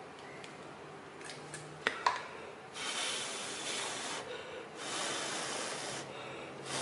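Two sharp clicks about two seconds in, then a person blowing three long breaths onto a freshly glued joint, to blow off the excess glue and make it dry faster and hold stronger.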